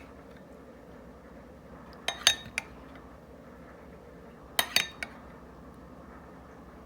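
A spoon clinking against a bowl while whipped cream is added to mashed cake: two short bursts of a few quick clinks, about two seconds in and again past the four-second mark.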